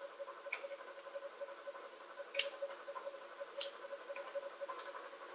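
Scissors snipping a thin clear plastic candy-kit tray: a few separate crisp clicks and crinkles, the clearest about two and a half seconds in, over a faint steady hum.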